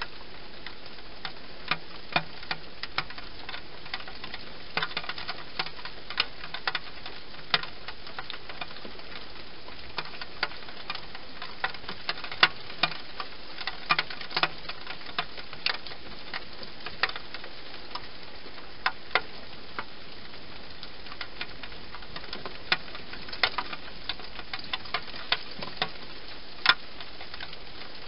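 Wild hedgehog eating inside a clear plastic feeding box: irregular sharp clicks and crunches of it chewing, a few a second in clusters, over a steady hiss.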